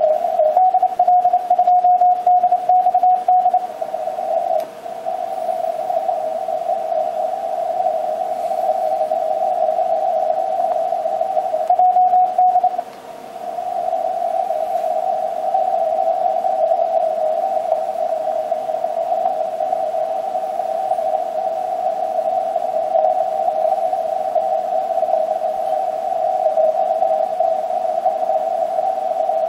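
Morse code (CW) received through an Icom HF transceiver's narrow 150 Hz CW filter: a steady, hissy tone at one pitch. A stronger keyed signal comes in during the first few seconds and again briefly about twelve seconds in.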